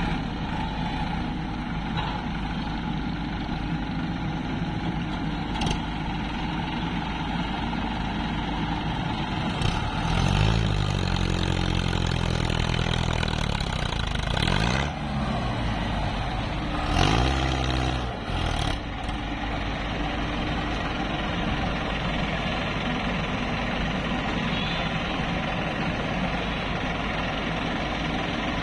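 Diesel engines of a tracked excavator and farm tractors running steadily, with an engine revving up and falling back several times in the middle.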